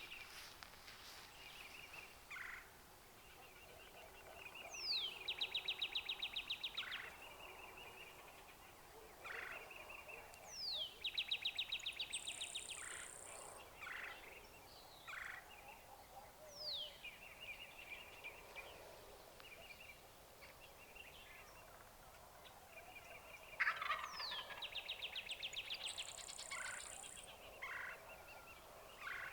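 Birds calling: a phrase of a quick falling whistle followed by a rapid trill, repeated about every six seconds, with scattered single chirps between. A high buzz sounds twice, about midway and near the end.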